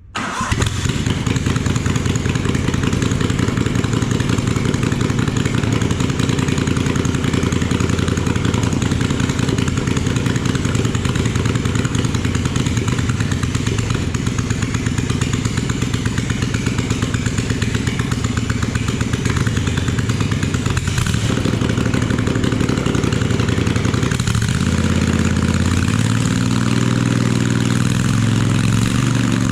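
Freshly reassembled Kohler CH18 air-cooled V-twin engine catching right at the start and running steadily, with two brief dips in speed about 21 and 24 seconds in and a slight change in pitch near the end.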